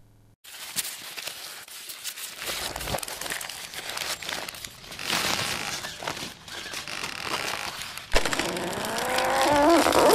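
Scraping and rustling friction noise with many small knocks as a rope is hauled taut over the ground and a stump. Near the end a pitched, strained cry rises steadily in pitch.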